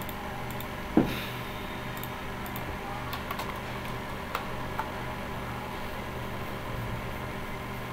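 Typing on a computer keyboard: a few scattered key clicks as a web address is typed, over a steady low hum. One sharper, louder knock comes about a second in.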